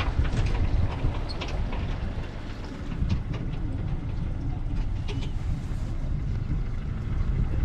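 Steady low rumble of a vehicle in motion, with scattered knocks and rattles over it.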